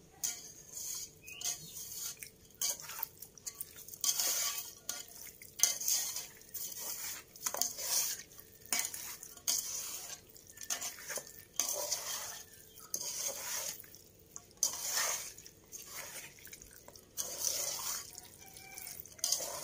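Hands mixing and kneading raw chicken pieces in a thick spice-paste marinade in a steel pot: wet, irregular squishing strokes, about two a second.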